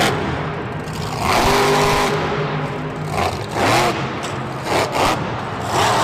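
Monster truck engine revving in several swells, its pitch rising and falling.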